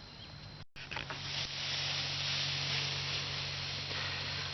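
A steady high-pitched hiss with a faint low hum underneath. It starts after a brief dropout about three-quarters of a second in, with a few short rustles just before it.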